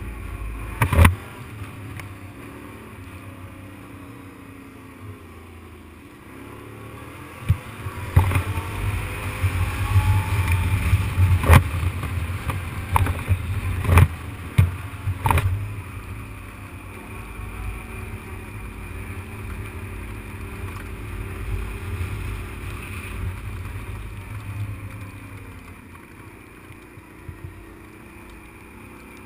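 Engine of an off-road vehicle running under the rider, its pitch rising and falling as it is driven over rough ground, louder and busier between about 8 and 16 seconds in. Several sharp knocks sound over it.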